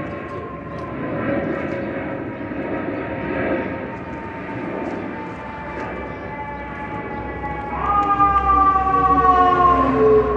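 A siren wailing, its pitch falling slowly; near the end a louder wail starts higher and falls again.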